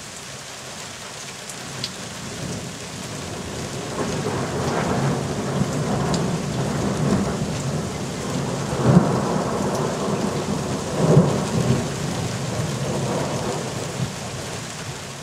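Steady rain falling during a thunderstorm, with a long roll of thunder that builds about four seconds in and peaks twice in the middle before slowly rumbling away.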